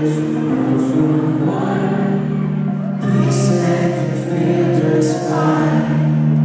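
Live concert music: a male lead singer singing a slow song into a microphone with band accompaniment, with long held notes.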